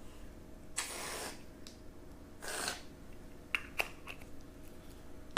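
Slime being stirred in a bowl while the activator works in: two brief swishing strokes and a few small clicks of the spoon against the container.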